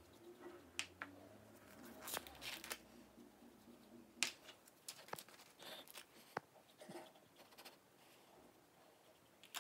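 Faint scattered clicks and light rustling from small containers being handled while glitter is added to slime.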